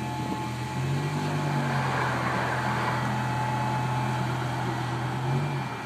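BMW M5 E60's 5.0-litre V10 idling through an RPi GT exhaust, reportedly with decatted headers, as a steady deep note. The engine speed lifts slightly about a second in and again near the end.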